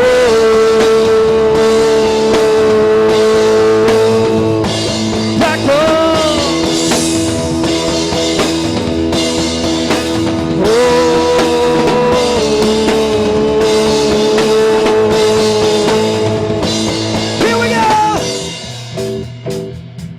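Rock band playing with drums, bass and guitar, with long held high notes that slide in pitch between them. At about 18 seconds it drops to a quieter, sparser guitar part.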